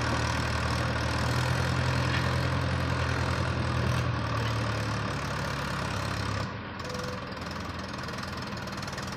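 A heavy vehicle's engine idling with a steady low throb; about six and a half seconds in it drops quieter and thinner.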